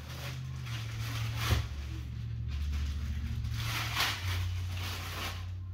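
Clear plastic packaging bag rustling and crinkling in several swells as a wrapped statue piece is lifted out and handled, with a sharp knock about one and a half seconds in. A low steady hum runs underneath.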